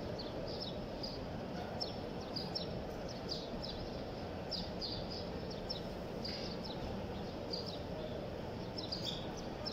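Steady hubbub of a large crowd of pilgrims, with frequent short, high chirps of small birds above it.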